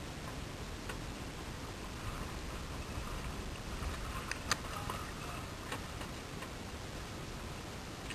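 Spinning fishing reel ticking as line is wound in on a hooked shark, with a few sharp clicks, the loudest about halfway through, over a steady low background rush.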